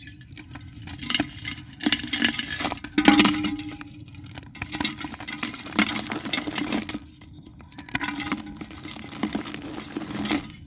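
Dry white dirt crumbled by hand into a clay pot: irregular crisp cracks and crunches, with small fragments clinking into the pot. The loudest break comes about three seconds in.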